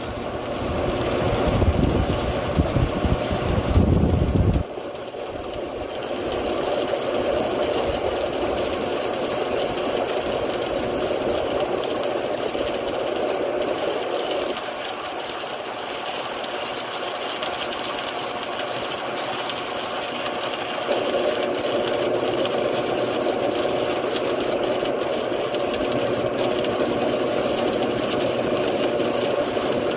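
Lincoln Idealarc 250 transformer arc welder humming steadily under heavy load, drawing about 40 amps from the mains. Wind buffets the microphone for the first few seconds, and the hum dips slightly around the middle before coming back up.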